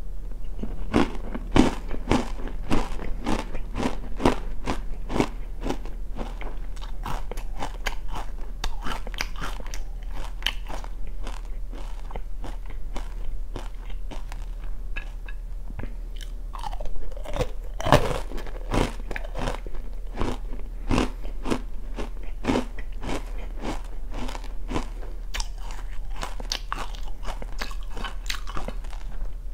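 Close-up crunching and chewing of oranda, a hard, syrup-coated puffed snack: a steady run of sharp crunches, with the loudest ones a couple of seconds in and again a little past the middle.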